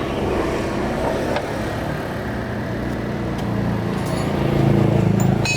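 An engine running steadily with a low hum, growing louder about four seconds in, with a few light clicks.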